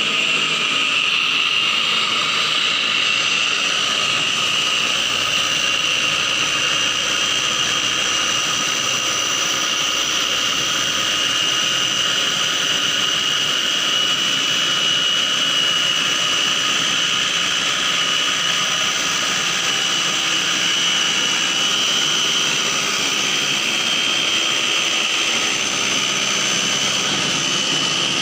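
Electric kitchen blender running steadily at full speed with a loud, high whine, blending a papaya leaf with water.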